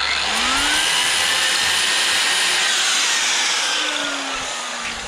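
Angle grinder with a cut-off disc spinning up with a rising whine and cutting through the steel frame. It winds down with a falling whine in the last second or so.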